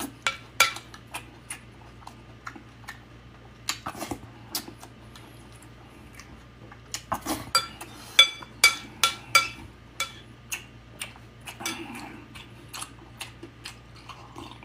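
Metal spoon clinking and scraping against a ceramic plate while scooping food, many sharp ringing clinks that bunch together about halfway through. Chewing and mouth sounds of eating come between the clinks.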